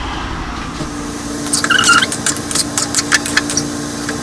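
Pot of cucumber and shrimp cooking on the stove: irregular crackling ticks over a steady low hum, with a brief squeak about a second and a half in.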